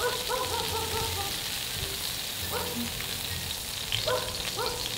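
Pork belly sizzling steadily on a round griddle pan heated by a gas burner.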